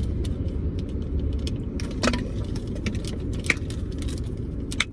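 Steady low rumble of a car cabin, with small light clicks and rattles scattered through it, two of them sharper, about two seconds and three and a half seconds in.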